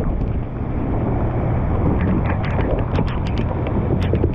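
Heavy wind buffeting the microphone over a bass boat's motor running in a storm, with sharp ticks of rain and hail striking the boat and camera from about two seconds in.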